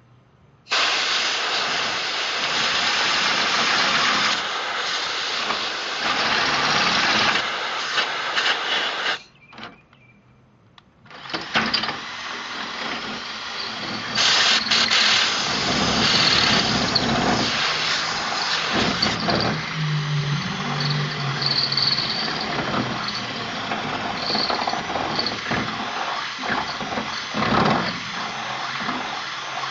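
Chicago Electric 1/2 in. corded drill running a high-speed steel bit through steel angle iron while a blow gun hisses compressed air onto the bit to cool it. The noise starts about a second in, stops for about two seconds, then starts again.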